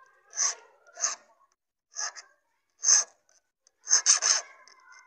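Steel hand file rasping across a metal key blank as a replacement motorcycle key is cut by hand. Single strokes come about a second apart, then three quick strokes about four seconds in.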